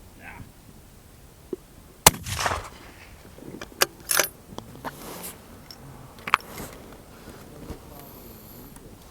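A single target-rifle shot in .308 about two seconds in, sharp and ringing briefly. It is followed by a few smaller metallic clicks and clatter as the rifle's bolt is worked.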